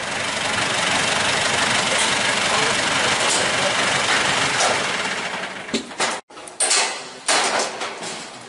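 A vehicle engine running steadily. It fades after about five seconds, then breaks off abruptly into short, choppy stretches of sound.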